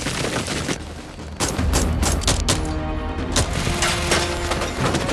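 Heavy automatic gunfire: rapid volleys of shots with deep booming rumble, starting in earnest about a second and a half in after a brief lull, over a tense music score.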